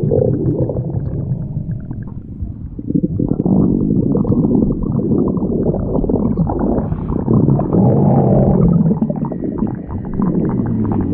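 Stomach growling: a long, continuous low gurgling rumble that dips about two seconds in and swells again a second later.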